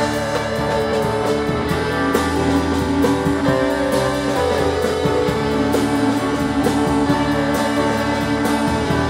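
Live rock band playing an instrumental passage with no singing: electric guitar, upright bass and drums, steady and loud.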